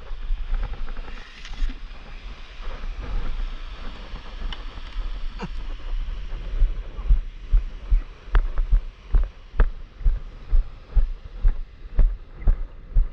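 A stand-up paddleboard being walked across the sand into shallow water: low handling thumps from the board-mounted camera, over the wash of small waves. The thumps come irregularly at first and settle into an even beat about twice a second, at a walking pace, from about halfway through.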